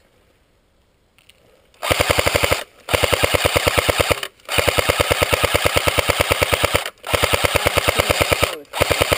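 Electric airsoft gun firing on full auto in five long bursts, each a rapid, even rattle of about 14 shots a second, starting about two seconds in.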